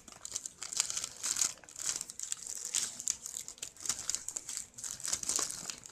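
Packing stuffing crinkling and rustling as it is pulled out of a gift box by hand, in quick, irregular crackles.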